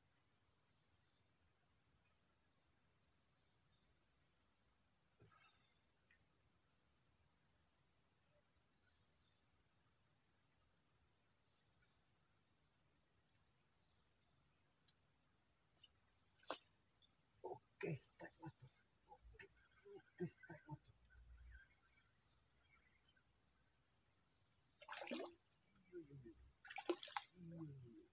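A steady, high-pitched chorus of insects drones without a break; faint voices come in briefly past the middle and again near the end.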